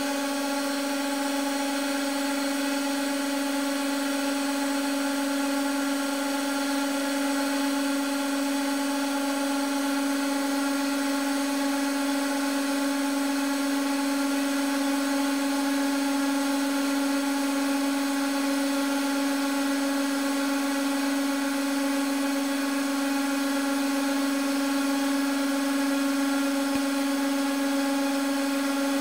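A 150-ton hydraulic press's pump running with a steady, unchanging hum while the ram moves down onto a stack of bubble wrap and begins to squeeze it.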